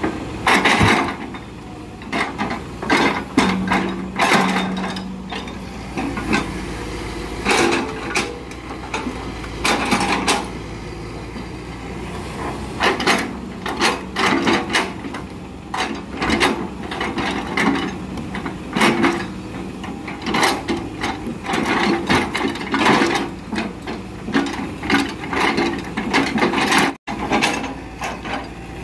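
Hitachi excavator's diesel engine running as its log grapple works, with repeated irregular wooden knocks and clunks as rubber-wood logs are gripped, dropped and shifted on the truck bed.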